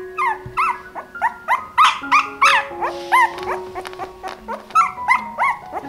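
Hungry newborn puppy squealing in short, high cries that rise and fall, many in quick succession. Background music with held notes plays underneath.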